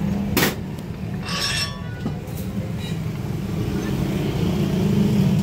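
A knock just after the start and a short metallic clinking about a second and a half in, from a wire coil being handled on a winding machine's former, over a steady low rumble.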